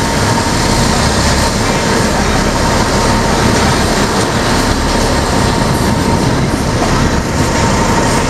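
Steady, loud mechanical rumble of a vehicle barge's engines running, with a thin steady whine over it.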